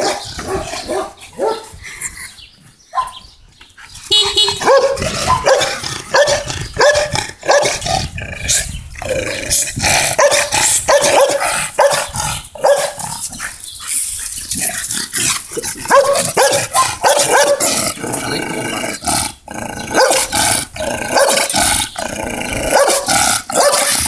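Pit bull barking fiercely and repeatedly, several barks a second at times, with a short lull about two seconds in.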